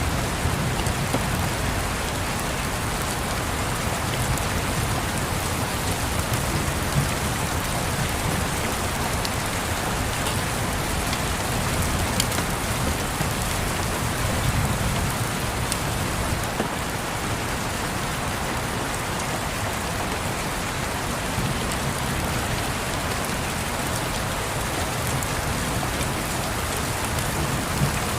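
Steady rain falling and pattering, with a low rumble underneath and a few faint scattered clicks.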